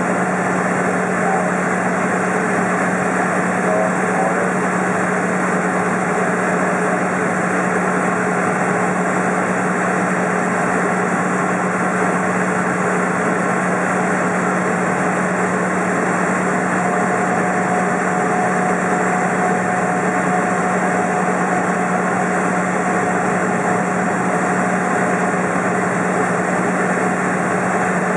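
Cessna's engine and propeller running steadily, heard inside the cabin as the plane taxis along the runway after landing.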